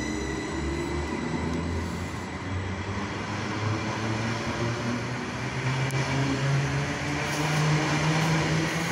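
Class 745 electric multiple unit pulling away, its traction motors giving a low hum that rises steadily in pitch as the train gathers speed, over the running noise of the train on the track.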